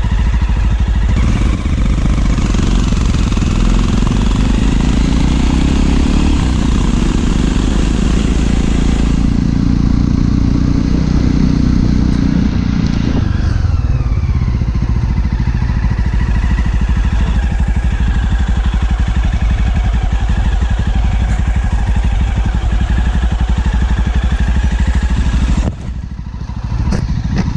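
Motorcycle running on the move, its pitch falling about halfway through as it slows. The sound dips briefly near the end.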